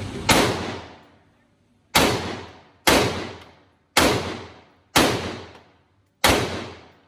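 Six gunshots fired one at a time at a target, roughly a second apart with a slightly longer gap before the last, each followed by a ringing echo tail.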